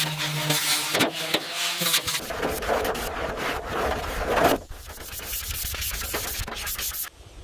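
Abrasive rubbing and scraping on a surface, like sanding, with a machine hum under it for the first two seconds; the sound changes about two seconds in and grows quieter about halfway through.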